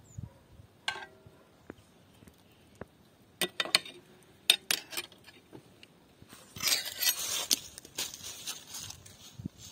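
Knife and fork clinking against a ceramic serving platter in a few sharp clinks, then a louder stretch of scraping and handling noise near the end as the platter is slid and lifted off the table.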